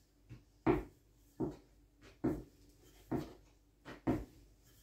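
Dull knocks of kitchen work with manty dough, coming regularly about once every 0.8 seconds.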